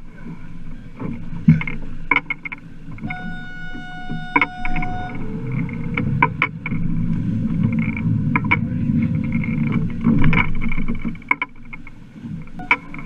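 Sounds aboard a small fishing boat at sea: a steady low rumble of water and wind against the hull, with scattered knocks and clicks on deck. A flat high tone sounds for about two seconds, around three seconds in.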